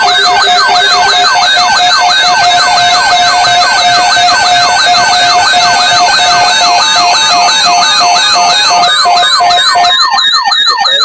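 Loud electronic siren-like alert tone signalling an incoming weather alert: rapid falling sweeps about four times a second over a warbling higher tone and a pulsing steady note. About ten seconds in, the pulsing note stops and the sweeps slow.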